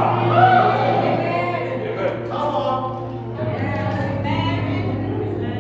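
Gospel singing: voices sing a slow line over a steady held low accompanying note, which changes pitch about three and a half seconds in.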